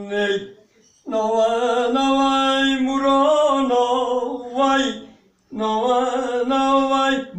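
A man singing a cappella in Turkish folk style, holding long ornamented notes, with short breaks for breath about a second in and again just past five seconds.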